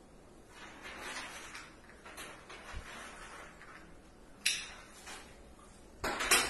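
Handling noises: faint rustling in the first couple of seconds, then a sudden sharp scrape about four and a half seconds in and a louder rasping burst near the end.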